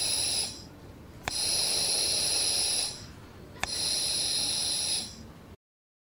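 Oxygen machine cycling: a click, then about a second and a half of hissing with a high whistling tone, then a short lull, repeating about every two and a half seconds. It cuts off near the end.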